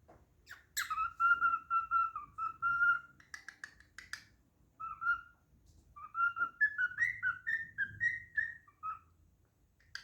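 Cockatiel whistling its song: a held whistled note of about two seconds, a few quick clicks, a short note, then a run of short warbled notes that step up in pitch.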